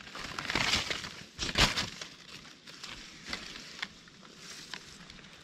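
Dry leaf litter and twigs crunching and rustling, in two louder bursts in the first two seconds, then lighter scattered crackles.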